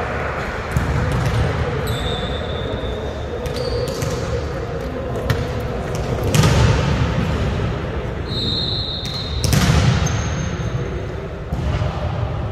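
Volleyballs being struck and bouncing on a hard gym floor, a scattering of separate thuds that echo around a large hall. A few brief high-pitched squeaks come in between them.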